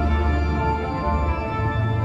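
Background music: sustained, ambient, organ-like chords over a low bass drone.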